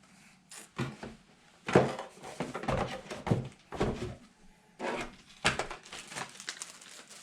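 Parts being handled during a PC build: a run of knocks, thunks and clatter, the loudest about two seconds in.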